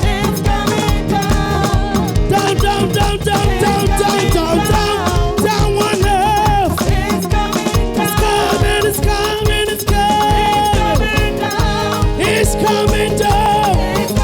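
Upbeat praise music with a steady driving dance beat and melodic instrumental lines, no words sung.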